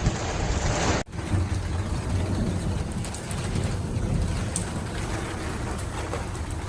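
Rain falling with a steady hiss, wind rumbling on the microphone; the sound cuts abruptly to another shot about a second in.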